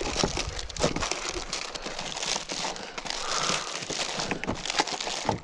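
Hands rummaging through plastic-packed fishing tackle on a kayak deck to find pliers: crinkling of plastic packaging with scattered clicks and knocks.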